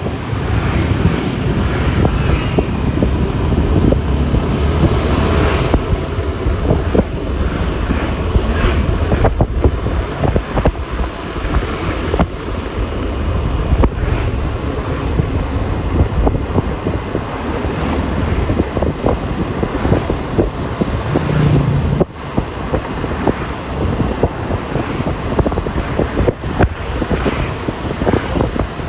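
Road noise from riding a Yamaha Lexi LX 155 scooter in traffic: wind buffeting the microphone in a heavy, gusting rumble over the sound of the scooter and the vehicles around it.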